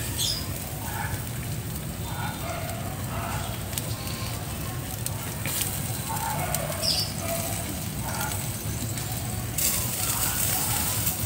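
Chicken legs sizzling on a grill over hot charcoal as annatto sauce is brushed on, with the coals crackling in small scattered clicks.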